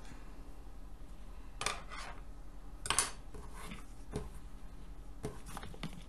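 Handling sounds: a metal knitting needle and cotton knitting being picked up and moved about on a tabletop, giving a few scattered clicks and light knocks, the loudest about three seconds in, over a low steady hum.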